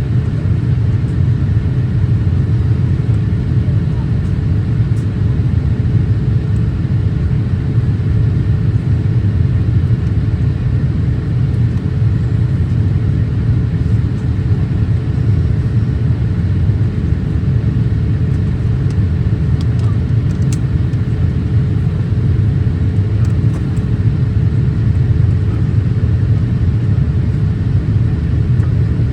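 Boeing 787-8 cabin noise in flight: a steady deep drone and rush of air around the fuselage, heard inside the cabin, with a faint steady hum above it.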